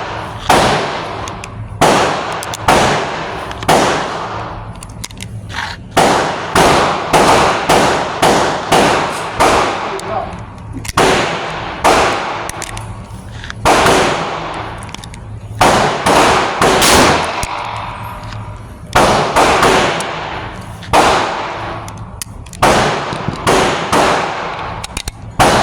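9mm pistol shots at a shooting range, the Glock 43X being fired through its magazine, with other shooters' shots mixed in. More than twenty sharp cracks, some in quick runs, each trailing off in an echo.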